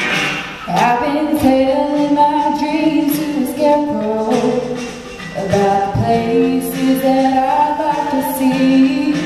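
A young woman singing solo into a microphone on a stage sound system. She sings two phrases of long held notes, with a short break about five seconds in.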